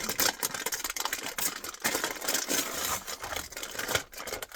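Plastic snack packaging crinkling as it is handled, a dense run of crackles and small clicks.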